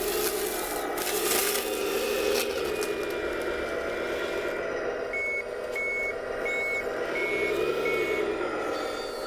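Simulated diesel engine sound from the RC wheel loader's CS-RC16 sound module, rising and easing with the throttle. About halfway through, it sounds five short reversing beeps, evenly spaced.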